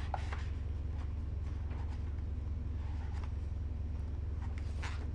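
Steady low hum with a few faint, short rustles and clicks.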